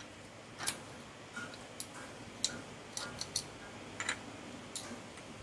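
Parts of a Honda CB150R starter motor being taken apart by hand, the small metal pieces clicking and tapping against each other: about ten sharp, irregular clicks.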